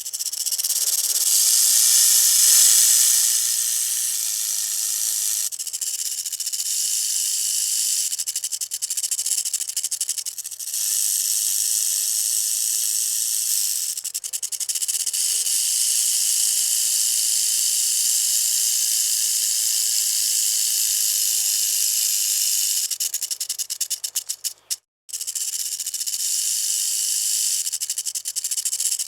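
Rattlesnake shaking its tail rattle: a steady high buzz of very rapid clicks, cutting out briefly a few seconds before the end.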